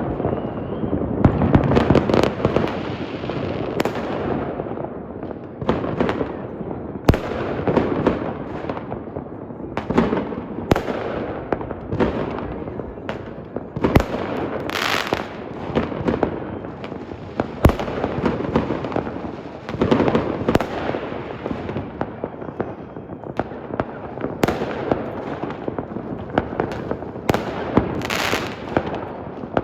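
Fireworks display: a continuous rumble of shell bursts and crackling, cut through by sharp loud reports every second or two, with a brief hissing burst about halfway and another near the end.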